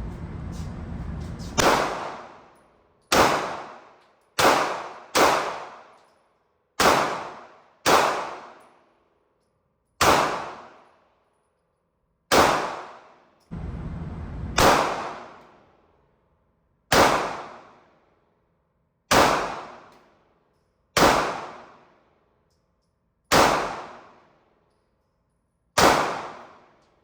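Gunshots fired one at a time at an irregular pace, roughly one to two seconds apart, fourteen in all, each sharp crack followed by a ringing tail that dies away over about a second.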